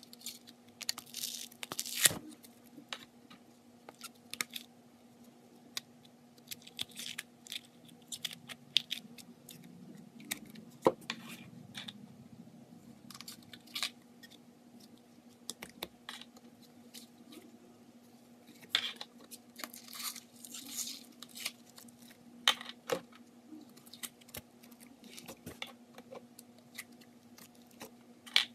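Several slimes, some packed with foam beads, are dropped and pressed into a square bowl, making soft squishes and irregular crunchy crackles. A faint steady low hum runs underneath.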